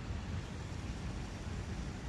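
Steady rushing of a brook flowing, an even wash of water noise with a low rumble and no pauses.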